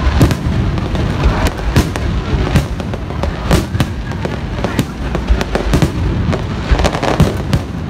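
Aerial fireworks shells bursting in a dense, irregular barrage: many sharp bangs, several a second, over a continuous low rumble of booms.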